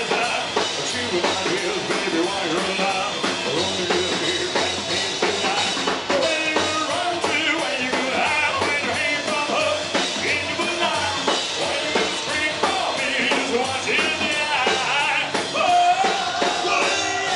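A live psychobilly band playing loud rock and roll, with drum kit, upright bass and sung vocals.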